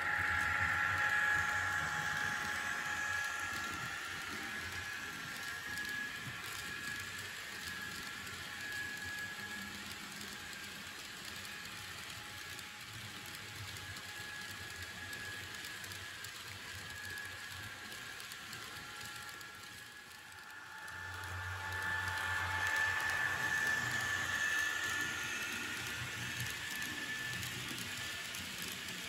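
Fleischmann N-scale DB class 1600 (ex-NS 1600) electric locomotive model with DCC sound, its decoder playing a steady electric-locomotive whine through the model's small speaker over the light rattle of tank wagons rolling on the track. The sound fades briefly about two-thirds through, then comes back.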